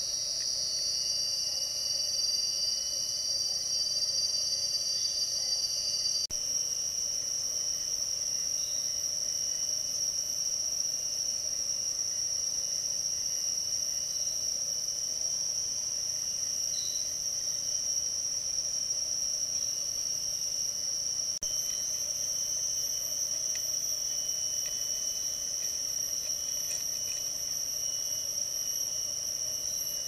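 Steady, high-pitched drone of a rainforest insect chorus, several insects buzzing at constant pitches with no pause. The mix shifts abruptly with a brief dropout about six seconds in and again about twenty-one seconds in.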